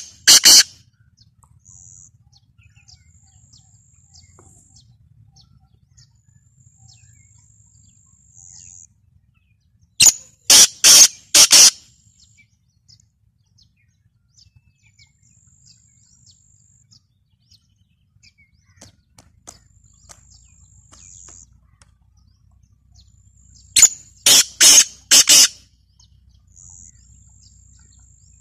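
Black francolin calling: loud bursts of four or five quick short notes, given twice about fourteen seconds apart, with the tail of another burst right at the start. Faint thin high tones sound between the calls.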